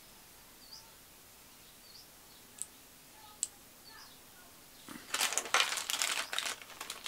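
Small plastic parts bag crinkling as it is picked up and handled, starting about five seconds in, loud and crackly. Before it, a few faint light clicks.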